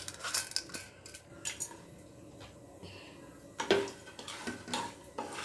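Wooden spatula stirring mustard seeds and dals frying in oil in a kadai, with scattered clicks and knocks against the pan and one louder knock near the end.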